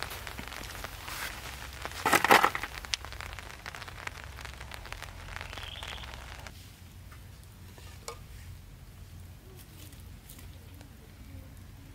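Small kindling fire crackling and popping in a portable camp fire stand, with a louder burst about two seconds in. About six and a half seconds in, the crackle drops to a few faint, scattered pops.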